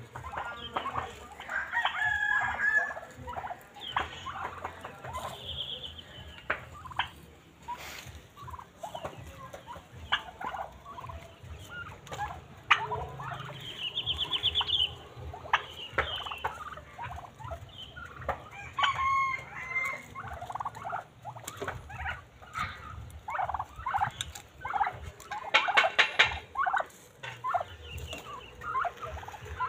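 Domestic turkeys calling on and off, toms gobbling in quick rattling runs among many shorter calls, the loudest run a few seconds before the end.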